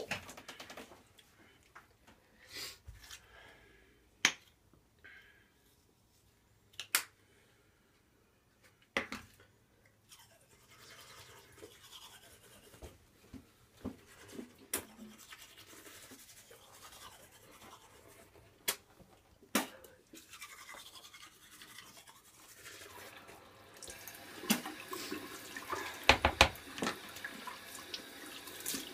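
Manual toothbrush scrubbing teeth, a rapid rough scrubbing that grows louder near the end. In the first seconds there are a few separate sharp knocks.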